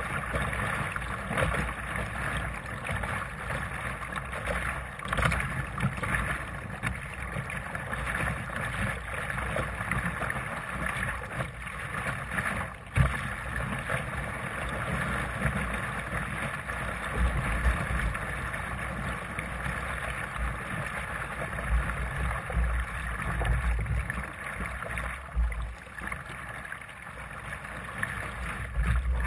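Water rushing and splashing along the hull of a Sunfish sailing dinghy under way, with wind buffeting the microphone in low gusts, strongest past the middle.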